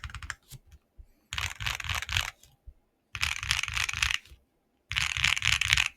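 Mode SixtyFive mechanical keyboard with hand-lubed Keygeek Y2 switches on a POM plate and GMK keycaps being typed on: a few single keystrokes at the start, then three bursts of rapid typing, each about a second long. The switches are relubed with 205 grease, which the owner says fixed their spring scratchiness.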